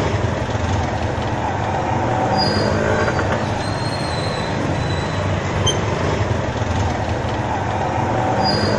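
Strong wind rushing and buffeting the microphone as it drives dust across a street, over a steady low rumble of street traffic.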